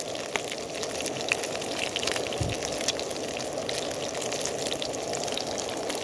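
Burgers sizzling in a Trangia non-stick frying pan: a steady frying hiss with many small crackles and a soft knock about two and a half seconds in.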